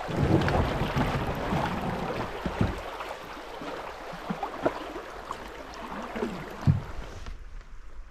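Shallow, stony river riffle rushing around a canoe, with a few scattered knocks. The rushing drops away abruptly near the end, leaving quieter water.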